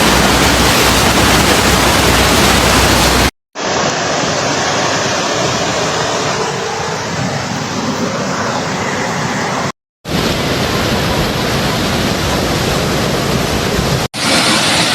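Floodwater rushing loudly and steadily, heard in four short stretches that cut off abruptly one after another.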